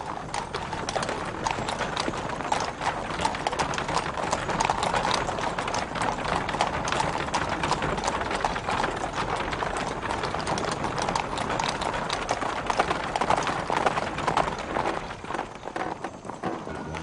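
Horse-drawn chariots on the move: a dense, continuous clatter of horses' hooves.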